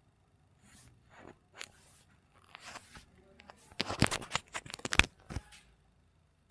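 Soft rustling, then a quick run of sharp cracks just past the middle: joints popping during a chiropractic back adjustment.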